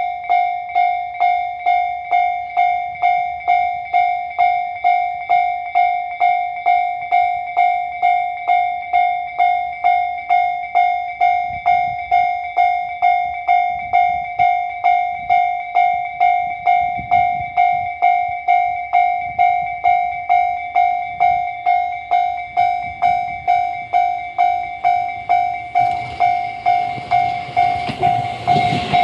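Japanese railway level-crossing warning bell ringing, a steady-pitched electronic clang repeating about twice a second. A train's rumble grows over the last few seconds as it approaches the crossing.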